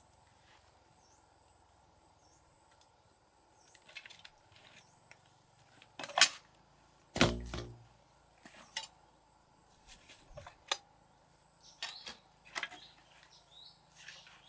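Scattered knocks and clicks of handling, with two louder thumps about six and seven seconds in.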